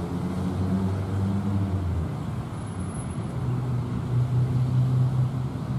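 Diesel locomotive hauling a loaded freight train slowly toward the listener, its engine running with a low, steady hum. The engine note shifts higher about halfway through and holds there.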